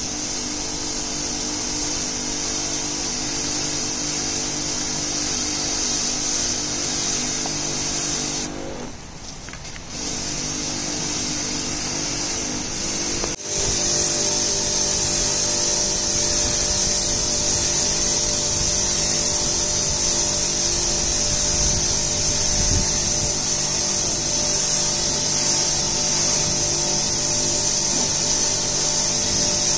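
Pressure washer running, its high-pressure water jet hissing against a sailboat's hull as it washes a light slime layer off the painted bottom, over a steady motor hum. The sound dips briefly about nine seconds in and comes back louder from about thirteen seconds.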